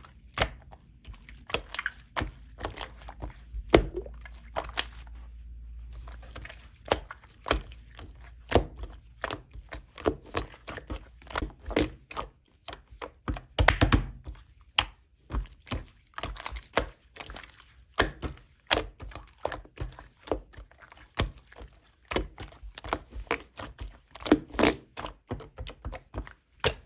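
Slime being pressed, squeezed and folded by hand, making a dense, irregular run of sharp clicks and pops.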